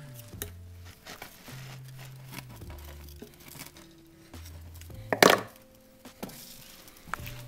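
A knife scraping around the rim of a baking pan to loosen a baked loaf of bread: light scrapes and small clicks, with one loud brief scrape about five seconds in. Soft background music plays underneath.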